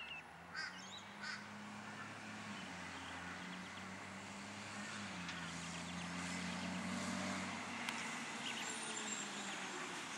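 Distant diesel truck engine running with a low, steady drone that shifts in pitch a couple of times, with two short bird calls in the first second or so.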